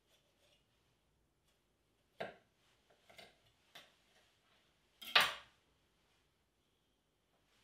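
Kitchen knife and raw chicken knocking against a plastic cutting board during butchering: a few light knocks, the loudest a little after five seconds in.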